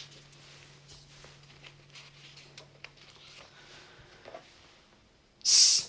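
Faint rustling and small ticks over a low steady hum that stops about four seconds in. Near the end comes a loud hissed 's' sound, a teacher's voice beginning to sound out the next phonics word.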